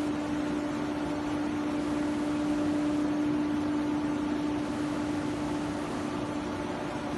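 CNC router spindle running steadily: a constant hum with an even hiss under it.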